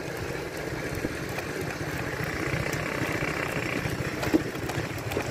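Motorcycle engine running steadily under way, a low rumble with road and wind noise, with one short knock about four seconds in.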